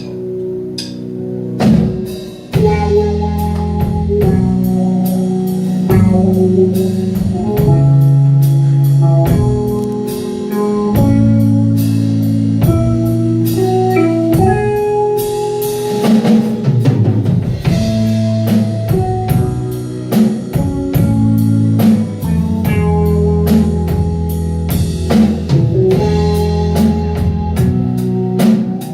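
Rock music with a drum kit keeping a steady beat under guitar and held chords, no vocals.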